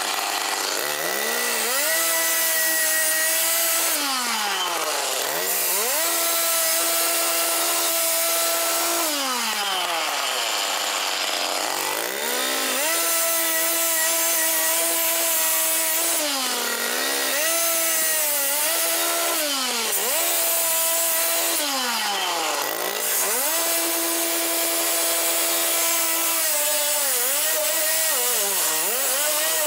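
Electric power saw cutting through the steel body of a 1956 Chrysler Windsor. Its motor whine holds a steady pitch under the cut, then sags and climbs back again and again as load and trigger change, over a rasping cutting noise.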